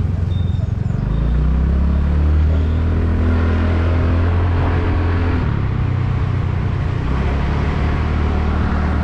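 Motorcycle engine running under way, a steady low drone that grows louder about a second in, with wind and road noise on the camera microphone.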